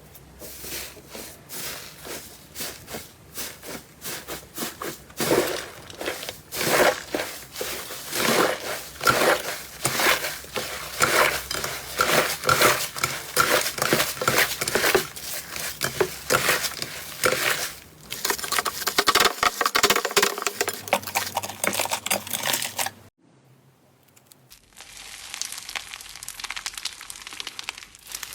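Slime being squeezed and pressed by hand, making a dense, irregular crackling and popping. It breaks off briefly near the end, then goes on more quietly.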